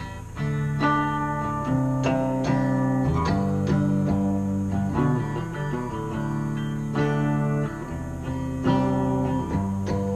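Electric guitar playing a picked melody of quick single notes over held low notes.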